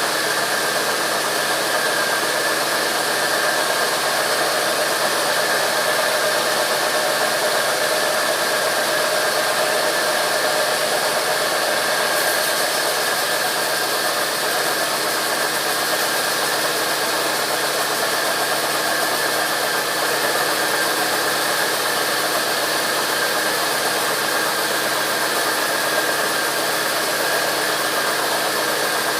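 Sawmill machinery running steadily: a continuous noisy whine with a steady high tone held through it.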